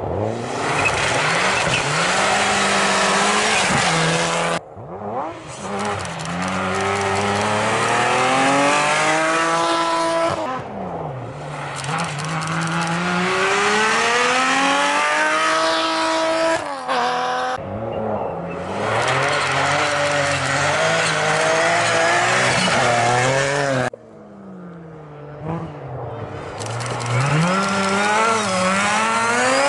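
Rally cars at speed on a special stage, passing one after another, about five in turn. Their engines rise and fall in pitch as they rev up and change gear, and each pass breaks off abruptly into the next.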